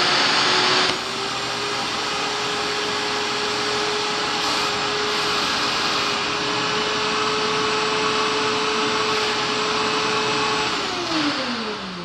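Shop vac running at full speed with a steady whine over a rush of air as it sucks the air out of a bag. The rush is loudest in the first second, then steadies. Near the end the vacuum is switched off and its motor winds down, falling in pitch.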